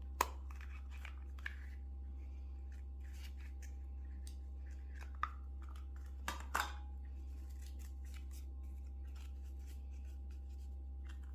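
Scattered small clicks and light rustling from hands handling chocolate and candy packaging, over a steady low hum. There is a sharp click just after the start, another about five seconds in, and a few louder clicks together around six and a half seconds in.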